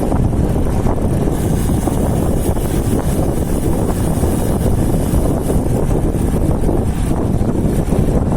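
Strong wind buffeting the microphone of a camera riding along on a road bike, a loud, steady, low rumble that covers everything else.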